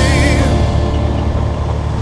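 Background music fading out about half a second in, leaving a Yamaha Ténéré 250's single-cylinder engine running steadily as the motorcycle rides along a dirt road.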